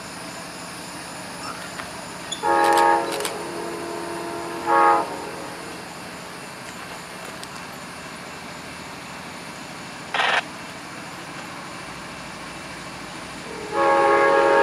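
Diesel locomotive air horn sounding a multi-note chord: a long blast about two and a half seconds in, a short one about two seconds later, and another long blast starting near the end. Underneath is the steady hum of an idling diesel locomotive, with a brief hiss about ten seconds in.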